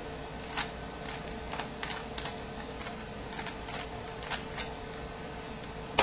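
Rubik's cube layers being turned quickly by hand through an edge-cycling algorithm: about a dozen irregular plastic clicks and clacks, ending about three-quarters of the way through.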